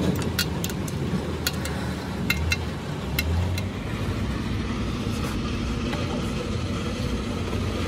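Workshop noise: a steady low rumble with a run of sharp clicks and taps over the first few seconds.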